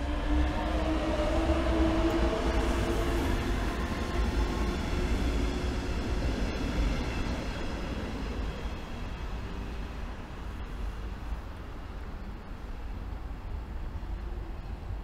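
Electric locomotive pulling a double-deck S-Bahn commuter train away from the platform: a humming whine from the drive that rises slightly and fades after a few seconds, over a steady low rumble.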